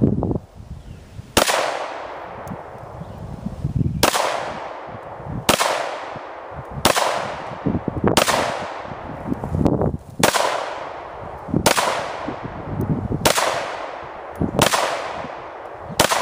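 Glock 19 9mm pistol fired about ten times at a steady, unhurried pace, a shot every second and a half or so. Each shot is a sharp crack followed by a fading echo.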